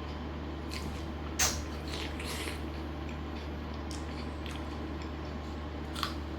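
Close-up eating sounds of a person chewing chicken biryani and fried chicken: wet mouth sounds with a few short, sharp smacks or crunches, the loudest about a second and a half in, over a steady low hum.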